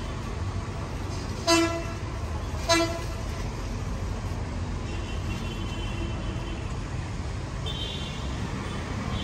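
Two short toots of a vehicle horn, about a second apart, over a steady low rumble of street traffic.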